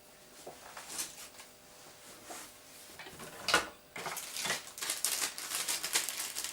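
Hands rummaging among small hard parts on a workbench: scattered clicks and clatter, one sharp knock about three and a half seconds in, then quick rattling and rustling.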